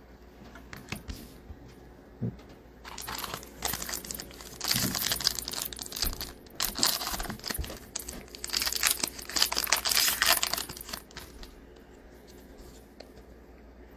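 A sealed trading card pack being torn open, its wrapper crinkling and crackling in several bursts for several seconds, before the cards are pulled out.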